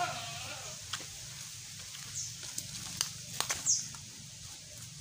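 An orange kitten's falling meow trails off in the first half second. Then come scattered crackles and snaps of footsteps on dry leaves and twigs, with a few faint high chirps.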